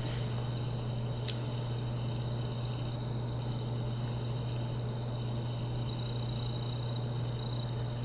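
Steady low hum with a faint, thin high-pitched tone over it, unchanging throughout; a brief faint chirp about a second in.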